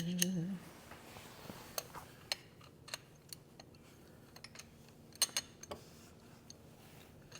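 Scattered light clicks and taps of hand tools and metal parts being handled during a motorcycle shift linkage install, with a few close together about five seconds in. A short hummed voice sound comes at the very start.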